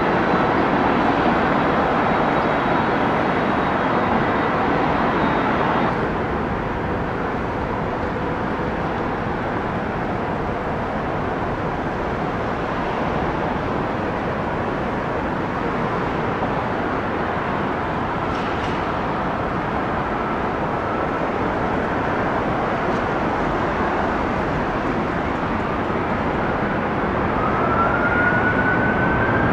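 Jet aircraft engines running: a steady rush with a faint high whine that stops about six seconds in, then near the end a whine rising in pitch as the engines spool up.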